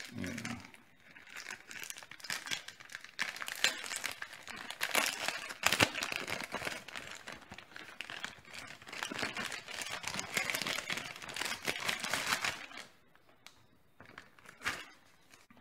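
Plastic bag and packaging crinkling and rustling with many small crackles as a hand rummages in it for a packaged fuel line kit. The crinkling stops about 13 seconds in, and one short crackle follows near the end.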